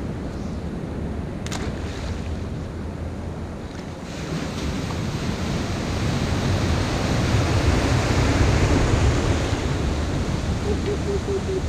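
Sea surf rushing and breaking beside a breakwater, with wind on the microphone. The rush swells from about four seconds in as a wave breaks and is loudest a few seconds later.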